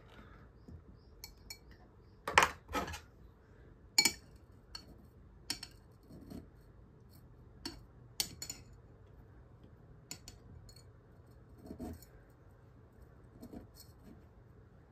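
Metal terrarium tweezers and tools clinking against a glass cylinder and tapping on a tabletop: a series of sharp, irregular clicks and clinks, the loudest about two and a half and four seconds in.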